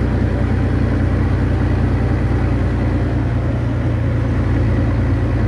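Vehicle engine running steadily while driving, heard from inside the cab as a constant low hum with road noise.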